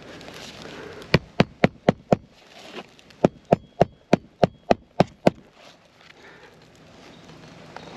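Hammer driving roofing nails into laminated asphalt shingles: a run of five sharp strikes, then after a short pause a run of about nine, each about four a second.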